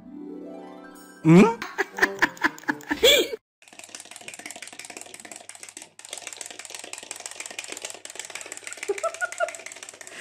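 A rapid, steady clicking rattle from a small cat toy on a wooden floor, with a brief break about six seconds in. Before it, in the first three seconds, there is a rising tone and a few loud, wavering cries.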